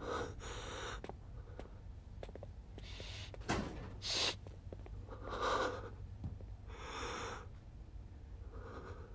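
A man breathing heavily in uneven, separate breaths, roughly one every one to two seconds, with a sharp sniff about four seconds in, over a low steady hum.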